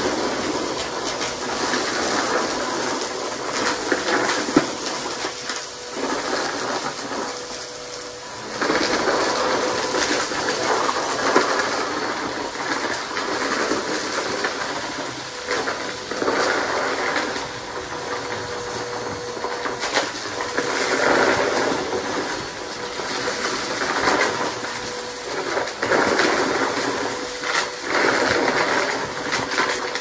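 Bissell PowerForce upright vacuum cleaner running steadily while being pushed through a pile of mixed debris on carpet. Its noise surges louder and softer with each stroke, with debris rattling up the nozzle and two sharp clicks of hard bits hitting, a few seconds in and about eleven seconds in.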